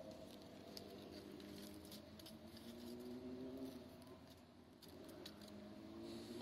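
Faint hum of a distant motor that slowly rises in pitch around the middle and again near the end, with a few light clicks.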